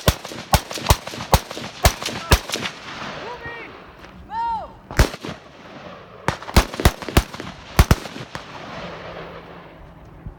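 M4-style rifle shots fired in quick strings: about six shots in the first two and a half seconds, a single shot about five seconds in, then another string of about six shots between six and eight seconds.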